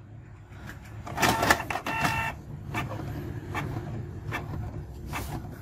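Canon iP2770 inkjet printer running a nozzle-check test print. About a second in, its motor gives a loud, steady-pitched whine for about a second, and after that come repeated clicks and ticks from the carriage and paper feed.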